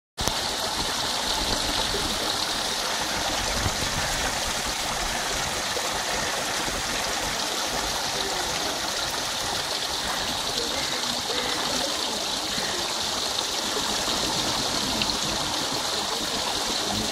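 Small artificial waterfall splashing steadily into an otter pool.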